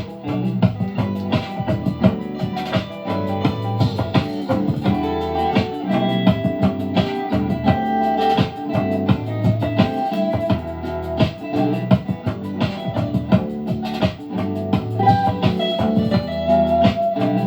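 Music with guitar and drums played back through an AKAI SS023A-X10 speaker.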